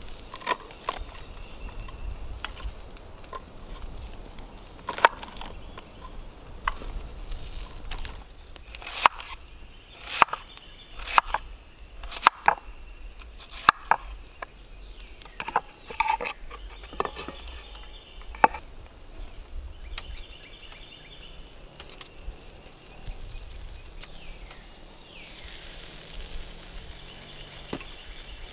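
Kitchen knife slicing cucumber and onion on a wooden cutting board: sharp knocks of the blade hitting the board in irregular runs. Near the end comes a steady hiss of meat sizzling on a grate over a campfire.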